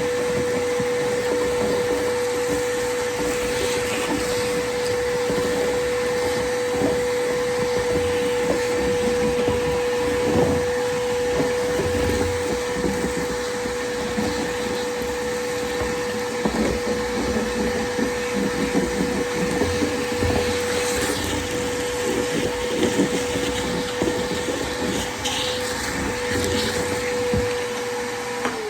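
Shop vacuum running with a steady motor whine and scattered clicks and rattles as debris is sucked up. At the very end it is switched off and the motor winds down.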